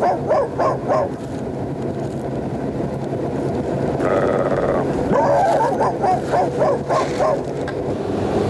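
A man imitating a small dog with runs of short, high yelping barks, about four or five a second. The yelps stop after about a second and start again at about five seconds, over the steady rumble of a moving subway car. A brief higher whine comes about four seconds in.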